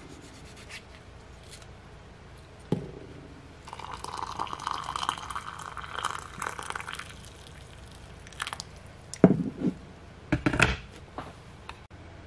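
Water poured in a thin stream into a ceramic mug, a splashing trickle lasting about three seconds that begins about four seconds in. One knock comes before it, and a few sharper knocks near the end are the loudest sounds.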